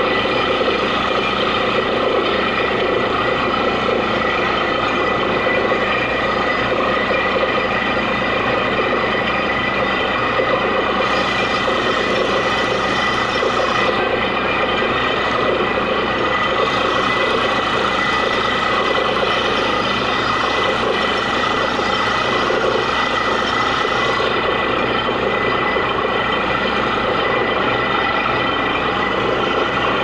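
A heavy engine running steadily: a continuous machine drone with several held whines that do not change in pitch or level.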